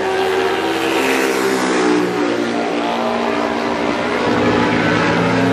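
Racing motorcycle engines running as a bike passes along the straight, with several engine notes shifting in pitch as other bikes run further off on the circuit.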